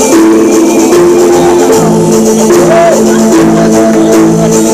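Stage music: sustained chords over a steady, high percussion rhythm.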